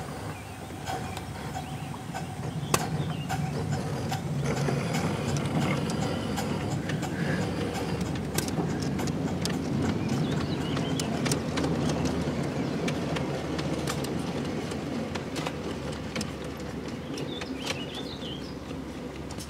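Ride-on miniature train rolling past close by: a rumble of its wheels on the track with irregular clicks and clacks. The rumble builds after a few seconds and eases off near the end.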